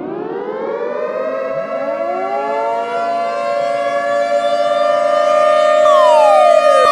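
Loud danger-alarm siren: a wailing tone winds up in pitch and settles into a steady wail, and a second rising siren tone joins about a second and a half in. Near the end, falling sweeps start to repeat over it.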